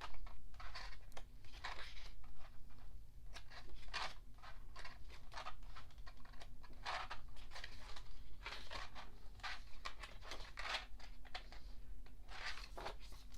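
Paper pages of a thick album photo book being turned one after another, many short rustling swishes at an uneven pace.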